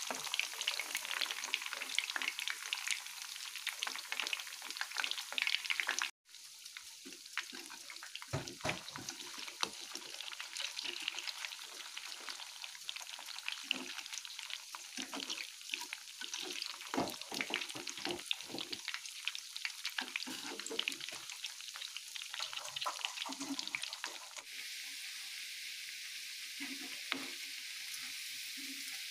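Breaded chicken nuggets deep-frying in hot oil, sizzling and crackling steadily, with a few soft knocks. The sound breaks off for a moment about six seconds in.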